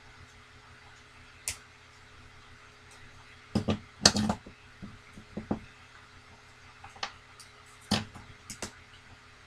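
Plastic parts of a Transformers Studio Series Deluxe Bumblebee figure clicking and knocking as the toy is forced together into its Beetle car mode. There are a handful of sharp clicks, with the loudest cluster about four seconds in, under a faint steady hum.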